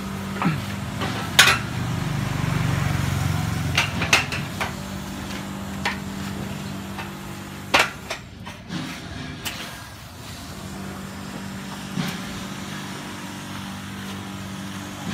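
Scattered sharp metal knocks and clanks, about half a dozen, the loudest about a second and a half in and near eight seconds, over a steady low machine hum, as aluminium door profiles are handled and assembled.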